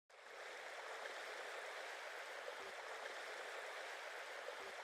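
A steady, faint rushing noise, like running water, that fades in at the very start.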